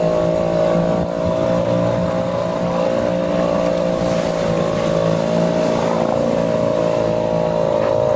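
Small Tohatsu outboard motor running at a steady speed, pushing an inflatable boat along, its pitch holding level throughout.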